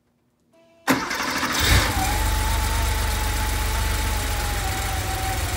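A freshly rebuilt Porsche 911 3.2-litre air-cooled flat-six is started. About a second in the starter cranks it briefly, it catches just before two seconds in, and it settles into a steady idle with a constant high whine over it.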